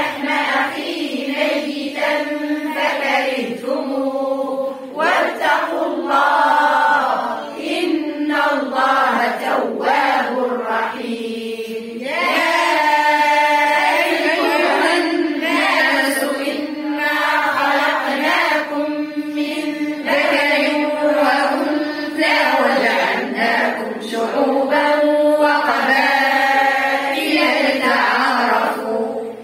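A group of women reciting the Qur'an together in unison, in a slow melodic chant with long drawn-out vowels.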